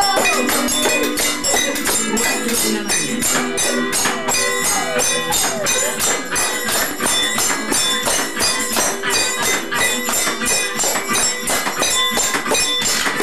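An improvised kitchen band of household utensils struck and shaken as percussion, keeping up a fast, steady beat.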